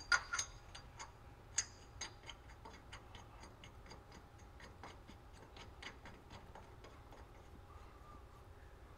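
Light metallic ticking as steel lug nuts are run onto the drive shaft hub's studs, a few louder clicks in the first two seconds, then softer, irregular ticks that thin out.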